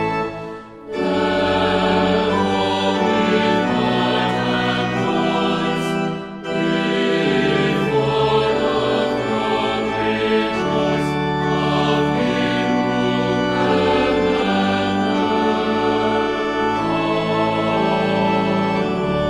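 Choir singing a hymn with organ accompaniment, held chords throughout, with short breaks between phrases about half a second in and about six seconds in.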